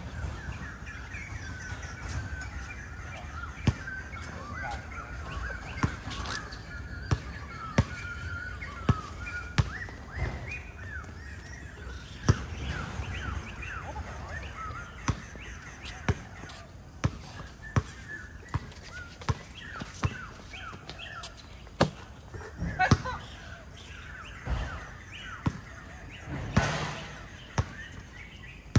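Basketball bouncing and being dribbled on a court: irregular sharp thuds throughout, with a run of short high chirps over the first ten seconds and a brief louder rush of noise near the end.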